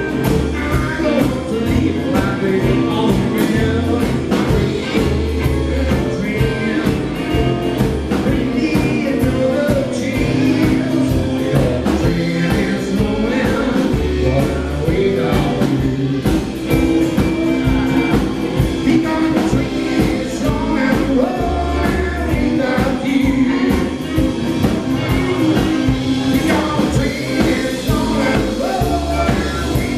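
Live band playing a song: a man singing over electric guitar, acoustic guitar, upright double bass and drums, with a steady beat.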